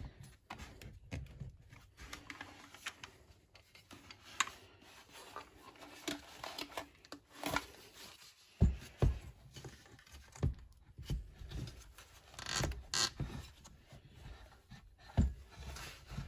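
Hard plastic chainsaw handle housing being handled and worked onto the engine of a Farmertec MS660 clone kit saw: irregular knocks, clicks and scrapes of plastic parts against each other and the bench, with a few sharper knocks in the second half.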